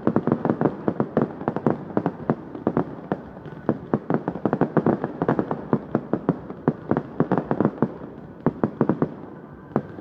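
Fireworks display: a dense, rapid run of bangs and pops from a ground-fired barrage, many to the second. It thins out briefly near the end before picking up again.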